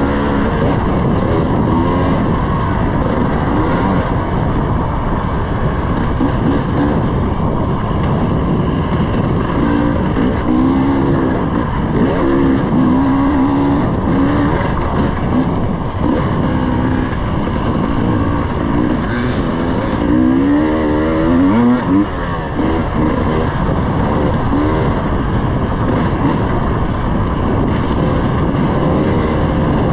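300 cc two-stroke dirt bike engine riding a trail, the revs rising and falling over a steady rough noise. The clearest climbs and drops in revs come about a third and about two thirds of the way in.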